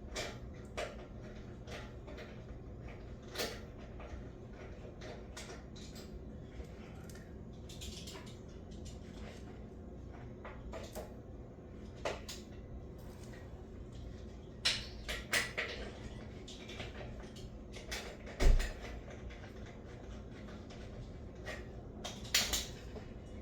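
Scattered clicks, taps and clatter of small engine parts being handled and fitted onto a lawnmower engine, with a few quick knocks in clusters and one heavy thump about eighteen seconds in.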